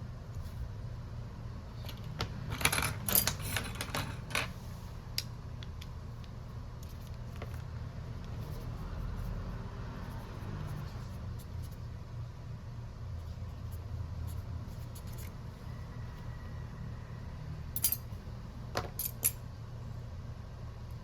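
Small metal tools and parts clicking and clinking on a repair bench, in a quick flurry about three seconds in and a few more near the end, over a steady low hum.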